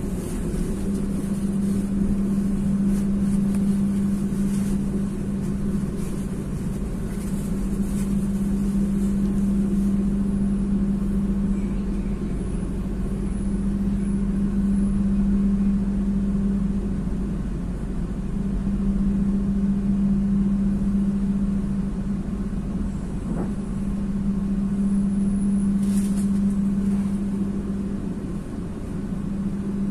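Inside a stainless-steel economy-premium passenger train coach: a steady low rumble with a strong hum that swells and dips every few seconds, and faint high whines now and then.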